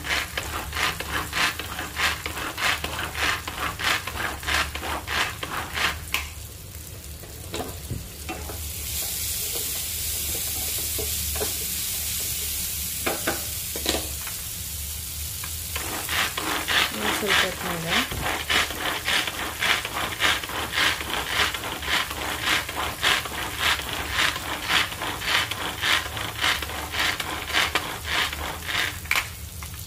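Pull-cord manual vegetable chopper chopping tomato: quick rattling strokes, about two or three a second, as the cord is yanked again and again. The strokes stop for several seconds in the middle, where a steady hiss is heard instead.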